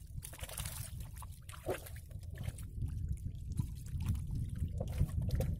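Water trickling and dripping as wet, flooded rice stalks are pulled aside from a wooden canoe and a fish spear is lifted out of the water. Scattered small splashes and clicks sit over a low steady rumble.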